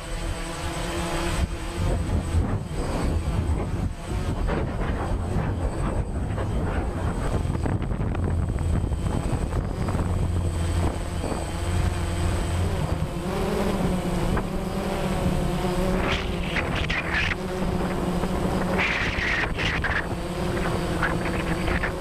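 Camera drone's propellers buzzing steadily in flight, the motor pitch wavering and shifting as it manoeuvres, with a few short rushes of noise about three-quarters of the way through.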